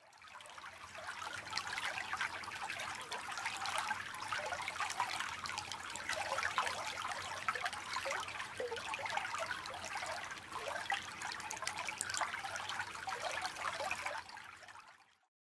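Creek water trickling, a steady splashy rush with many small irregular plinks, fading in at the start and fading out near the end.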